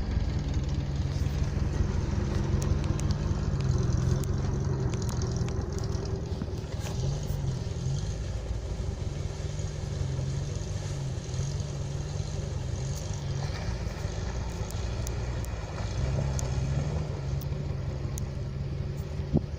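Motor vehicle engine running steadily under load, its revs rising and falling, as it drives through a stream.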